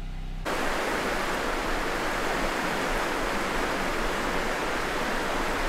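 Steady, even rushing noise, with no distinct events, that cuts in suddenly about half a second in.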